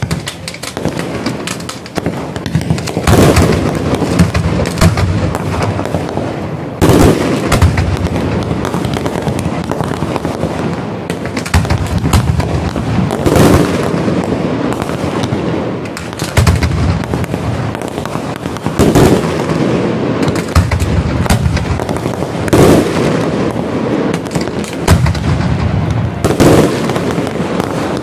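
Fireworks display going off: continuous crackling and popping, with loud bangs every few seconds.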